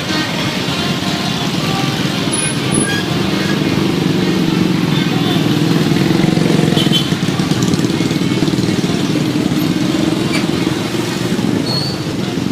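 Road traffic: the steady rumble of heavy vehicle engines passing close by, swelling to its loudest around the middle.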